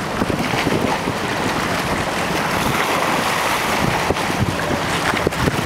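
Steady wind noise buffeting the microphone over the rush of choppy water and boat wakes.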